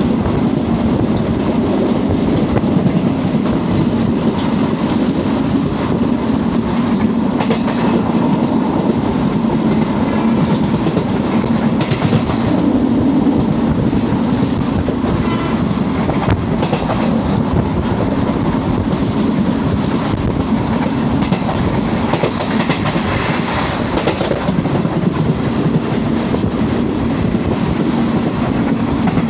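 Passenger train running at speed, heard from inside a carriage: a steady rumble of wheels on the track with scattered clacks over rail joints.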